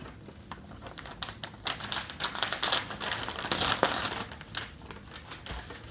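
Tape being picked and peeled off a sealed paper envelope: a run of crinkling, scratching clicks and rustles, busiest in the middle.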